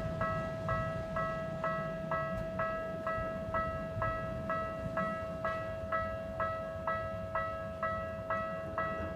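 Japanese railroad crossing warning bell ringing its 'kan-kan' ding about twice a second over a steady electronic tone. A low rumble sounds in the first couple of seconds.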